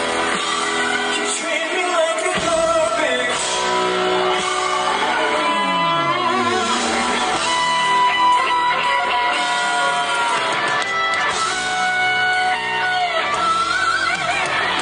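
Live band music with electric guitar and a male voice singing, with a low note sliding down in pitch around the middle.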